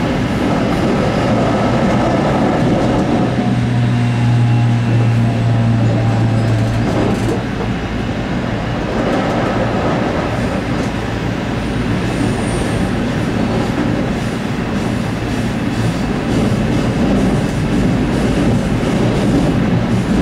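Running noise inside a JR 817 series 3000 electric multiple unit at speed: steady rumble of wheels on rail. A low steady hum stands out for a few seconds about three seconds in.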